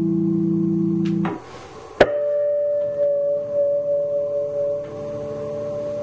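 Four-string electric bass: a held low note is cut off about a second in, then a sharp pluck about two seconds in sets off high, pure harmonics that ring on and slowly fade.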